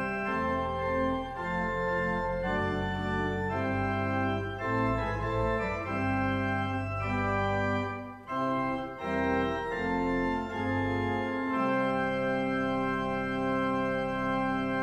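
Organ playing sustained full chords that change every second or so, then settle into one long held closing chord for the last few seconds.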